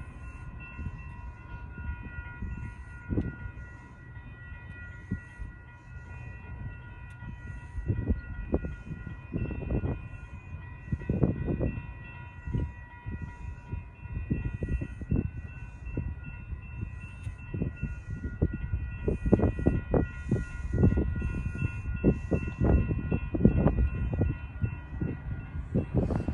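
Wind gusting against the microphone in uneven bursts, stronger in the second half, over a faint steady chord of high tones.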